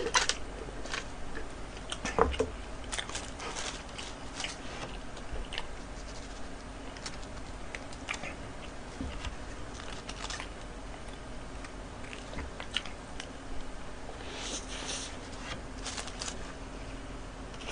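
A man eating a burger: quiet chewing and biting, with soft scattered mouth clicks.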